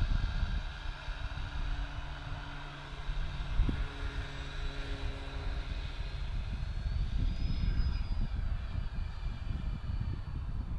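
Radio-controlled model tow plane's motor and propeller running up for the takeoff run, a steady high whine that rises in pitch about two-thirds of the way through and then eases back. Wind buffets the microphone underneath.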